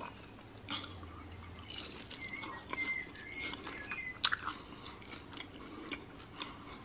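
Close-miked chewing of a mouthful of fried egg: soft wet smacking and small mouth clicks, with a sharper click about four seconds in.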